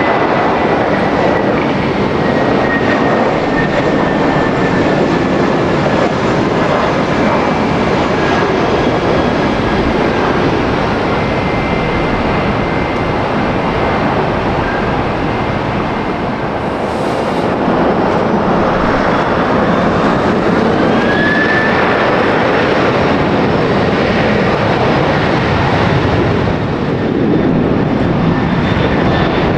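Jet airliner engines running loud and steady, with a faint whine that slowly falls in pitch and a short rising whine about two-thirds of the way through.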